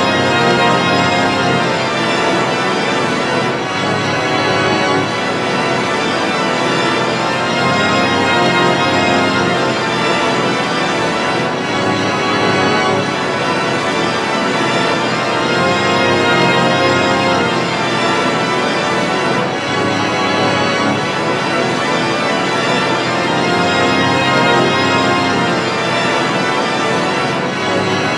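Thick, continuous organ-like chords held in dense stacks, shifting to new chords every few seconds.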